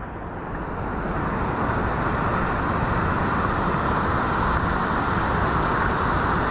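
Waterfall and rushing river water, a steady rush that grows louder over the first couple of seconds as it is approached, then holds.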